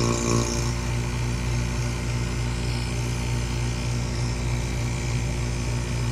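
Best Value Vacs 3 CFM vacuum pump running steadily with a low hum, run in with fresh oil and no hose attached, so it is pulling on nothing.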